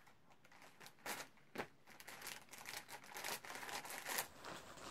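Parcel packaging rustling and crinkling as it is handled and pulled open by hand, in short irregular bursts.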